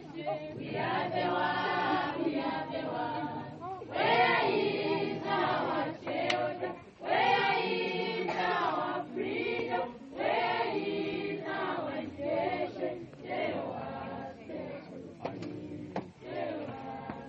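A choir of mixed voices singing unaccompanied, in phrases two to three seconds long with short breaks between them. The singing grows fainter in the last few seconds, where a few sharp clicks are heard.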